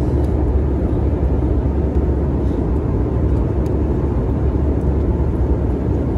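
Steady, low-pitched cabin noise of an airliner in flight, the mix of engine and airflow noise, with a few faint clicks of a spoon against the meal tray.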